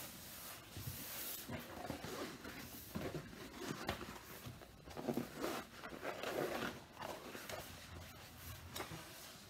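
A large rolled diamond-painting canvas being unrolled, lifted and smoothed flat by hand on a table: irregular rustling and crinkling of the stiff sheet, with rubbing of hands across its surface.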